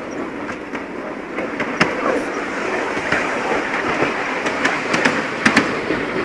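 Miniature ride-on steam train running along its track: a steady rumble of the wheels on the rails, with scattered clicks from the rail joints, several together about five seconds in.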